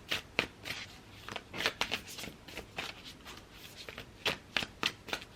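Tarot cards being shuffled by hand: a run of irregular papery riffles and light card slaps.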